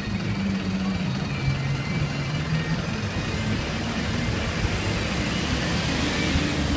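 Slow-moving city traffic: engines of taxis, double-decker buses and vans running as they crawl past close by, with a swell of louder rushing noise in the second half as a vehicle passes near.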